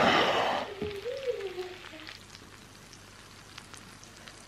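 Hot juices sizzling and crackling in a glass baking dish of roast pork loin and vegetables fresh from the oven, loudest at the start and fading to faint crackles. A short wavering tone sounds about a second in.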